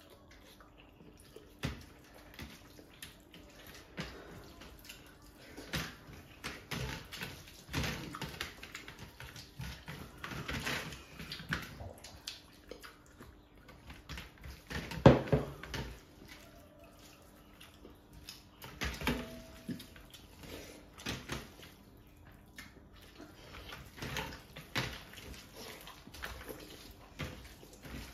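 Close-up eating sounds: hands squelching and mixing rice in curry on steel plates and open-mouthed chewing, in irregular wet smacks and clicks. One louder thump comes about halfway through.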